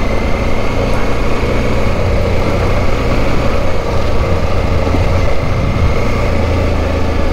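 Off-road motorcycle engine running steadily while riding a dirt track, with wind rushing over the helmet-mounted microphone.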